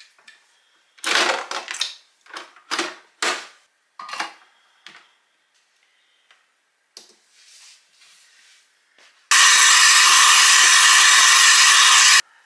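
Coffee machine with a milk frother: a handful of clunks and clicks as the cup is set under the spout and the machine is worked, then the machine runs loudly and steadily for about three seconds while it dispenses frothed milk, and cuts off suddenly.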